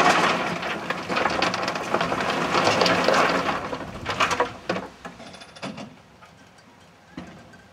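Coal tipped from a wire basket into a small steam locomotive's bunker: a dense rattling clatter of lumps for about four and a half seconds, then a few scattered clicks before it dies away.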